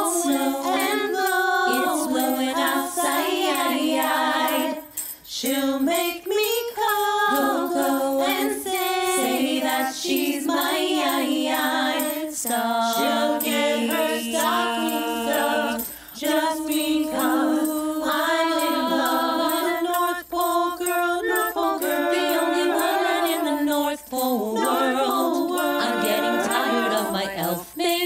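A women's vocal group singing in close harmony, several voices moving together in chords, a cappella with no bass line underneath.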